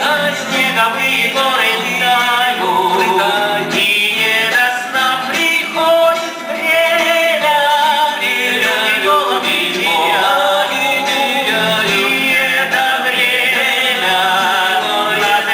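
Voices singing a song with music.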